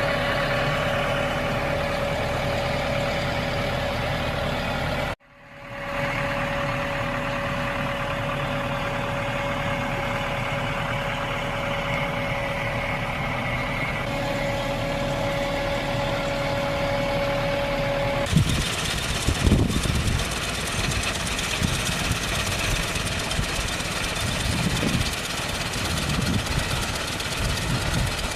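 Farm machinery engines running steadily, with a steady whine over the engine noise and a brief dropout about five seconds in. About two-thirds of the way through, the sound changes to the small gasoline engine of a walk-behind cranberry harvester running, with irregular low thumps.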